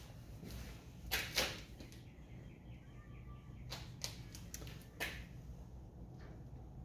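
A few sharp knocks and clicks: two louder ones close together about a second in, then fainter ones around four and five seconds in, over a low hum.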